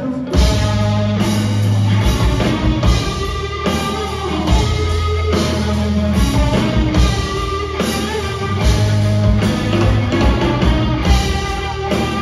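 Live rock band, guitars and drum kit, crashing in together about a quarter second in and then playing a loud, driving instrumental riff with no singing. Heard from among the audience.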